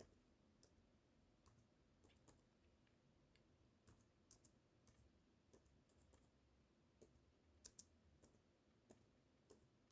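Faint, irregular clicks of someone typing and clicking on a computer keyboard and mouse, a dozen or so spread over near-silent room tone.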